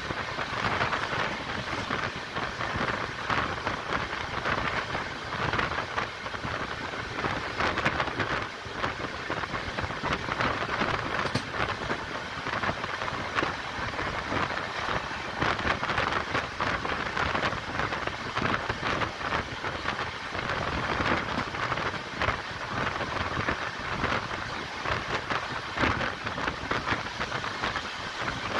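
A train running along the track, heard from inside the coach: a steady rushing noise with the rumble of the wheels on the rails.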